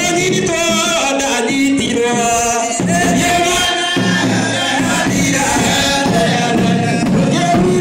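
A congregation singing a church hymn together, several voices at once.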